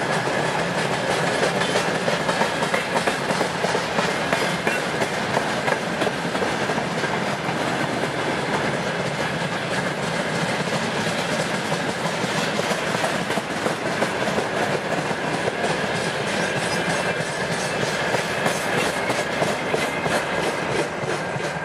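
Freight train of covered hopper wagons rolling past: a steady rumble of steel wheels on rail with a running clickety-clack over the rail joints, easing off near the end as the last wagon goes by.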